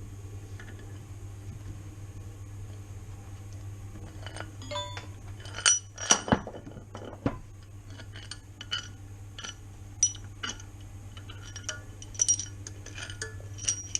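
Metal tools and engine parts clinking and knocking together, starting about four seconds in and loudest around six seconds, over a steady low hum.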